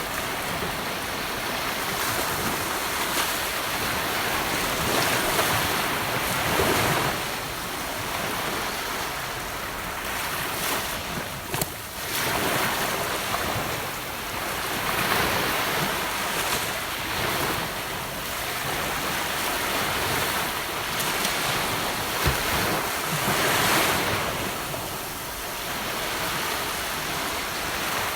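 Gentle ocean waves breaking and washing up on a beach, swelling and easing every few seconds, with a few faint crackles of surf.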